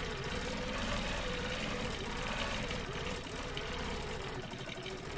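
Quilting machine running steadily, its needle and hopping foot stitching through the quilt layers in free-motion quilting.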